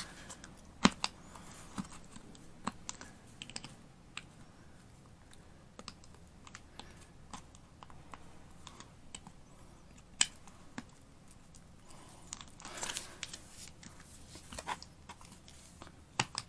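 Scattered sharp clicks and taps from a hard plastic fender duct panel, handled and pressed while a soldering iron melts holes through it. A short crackling stretch comes about two-thirds of the way in.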